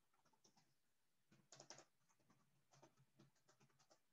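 Near silence: faint room tone with scattered soft clicks and taps, and a small cluster of slightly louder clicks about a second and a half in.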